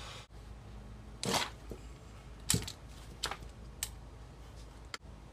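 Ratchet wrench clicking in four short bursts as it is swung back and forth, backing out stripped screws with a screw-extractor bit.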